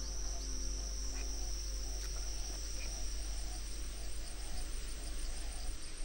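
Steady, high-pitched shrilling of an insect chorus, with a lower call repeating about twice a second beneath it.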